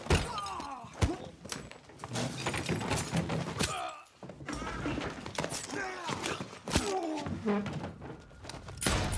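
Film fight sound effects: a run of blows and heavy thuds at irregular intervals, mixed with short grunts and strained breaths from the fighters.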